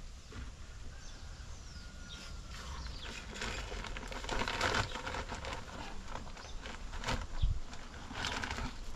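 Rustling and scraping as cement powder is scooped by hand and shovel from a cement sack, in irregular bursts, with one dull thump about seven seconds in. Birds chirp faintly in the background.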